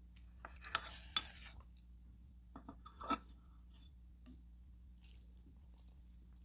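Wooden chopsticks and ceramic tableware being handled: soft clicks and clinks as the chopsticks are picked up and moved over the bowls, in a cluster about a second in and another about three seconds in.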